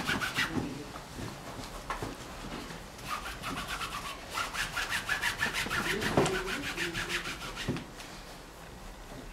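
A cloth rag scrubbing oil paint over a stretched canvas in quick back-and-forth strokes: a short spell at the start, then a longer run from about three seconds in that stops near the end.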